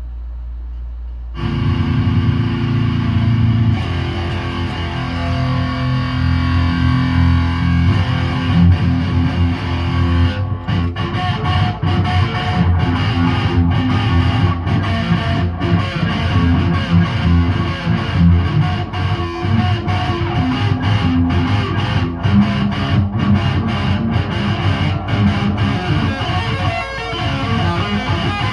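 A low rumble, then distorted electric-guitar music starts abruptly about a second and a half in and carries on, with a sharp rhythmic beat joining later.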